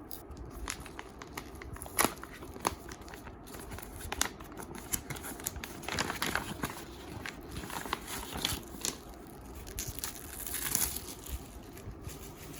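Parcel packaging being handled and opened: irregular crinkling and rustling with tearing and sharp clicks, the loudest a snap about two seconds in.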